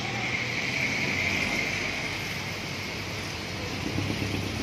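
Steady hiss of rain falling on a wet street, with traffic passing on the wet road and a low engine rumble about four seconds in.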